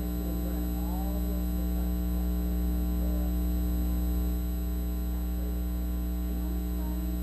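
Loud, steady electrical mains hum, a buzz with many overtones, on the recording. A faint voice lies underneath, mostly drowned out.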